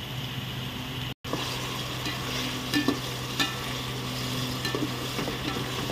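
Chicken pieces and sliced onions sizzling in hot mustard oil in a metal pot while being stirred and browned with a slotted spatula, which scrapes and clicks against the pot a few times. The sound cuts out briefly about a second in.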